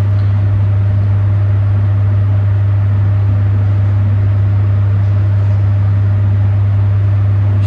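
A loud, steady low hum that does not change.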